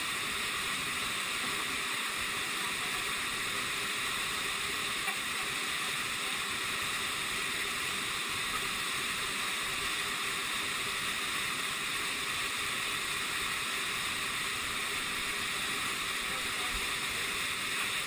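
Waterfall pouring down right beside the microphone: a steady, even rush of falling water, mostly high in pitch.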